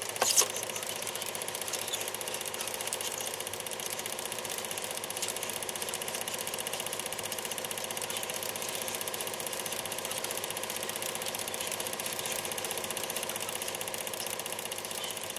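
Film projector running: a steady, fast mechanical chatter with a constant hum.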